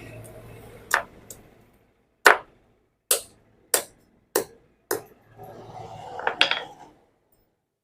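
Hammer strikes breaking open a refrigerator compressor's overload protector (OLP): a sharp blow about a second in, the loudest just after two seconds, then four more about 0.6 s apart. A short clatter and rustle of handling the broken pieces follows near the end.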